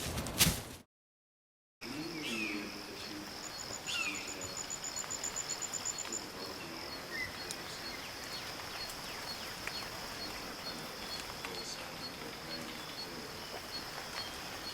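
Jungle ambience: a steady high insect drone with a regular pulse, a fast insect trill lasting about three seconds, and a few short bird chirps. It opens with a couple of loud thuds that cut off into a second of silence.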